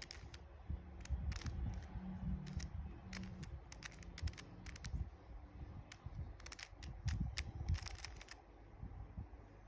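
Plastic Rubik's Cube layers being turned by hand, clicking and clacking in short irregular runs as a middle-layer algorithm is worked through.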